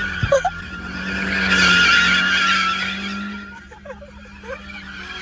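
Tyres of a front-wheel-drive Lada 2112 hatchback squealing as it slides through a tight circle, with its engine running underneath. The squeal wavers, swells about a second in, is loudest around two seconds in and dies away about three seconds in.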